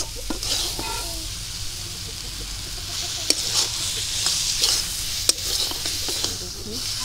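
Long metal spatula stirring and scraping taro leaves and stems against a metal kadai, with sharp scrapes of metal on the pan every second or two, over a steady sizzle from the curry cooked down nearly dry.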